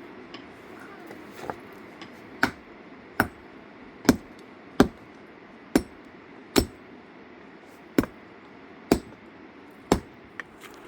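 A hand tool striking hard and regularly: about nine heavy blows a little under a second apart, with a lighter tap before and after.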